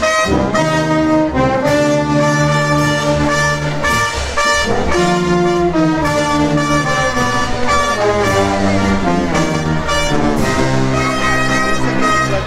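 Brass band playing a melody in held notes, trumpets and trombones together over a steady beat.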